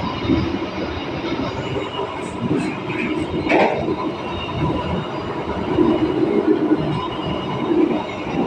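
Train carriage running along the rails with a steady rumble and rattle, and a brief sharp screech about three and a half seconds in.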